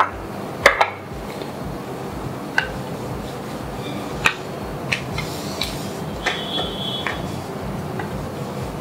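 A rolling pin rolling out a ball of wheat dough on a floured granite counter, with scattered short clicks and knocks as the pin and a bowl touch the stone.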